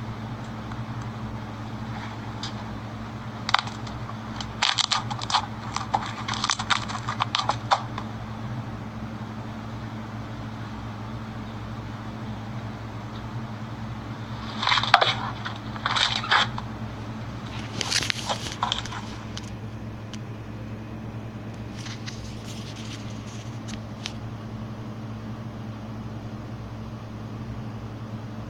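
Slime being pressed and worked by hand, giving several bursts of crackling, popping clicks over a steady low hum.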